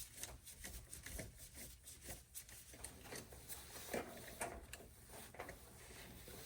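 Faint irregular clicks and scraping of a hand screwdriver backing a small sheet metal screw out of a circuit board's metal mounting plate.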